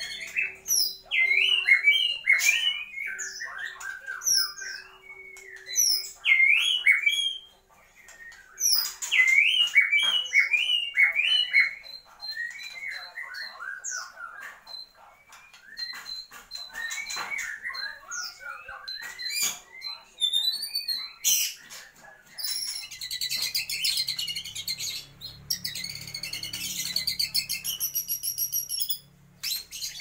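White-rumped shama singing a rapid, varied song of gliding whistles and chattering phrases in short bursts, its song laced with imitations of other birds. Over the last several seconds it turns into a denser, harsher run of chatter.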